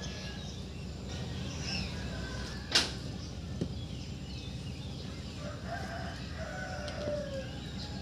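A rooster crowing, its call falling in pitch over about a second and a half in the second half, with chickens clucking over a steady low rumble. A single sharp knock about three seconds in is the loudest sound.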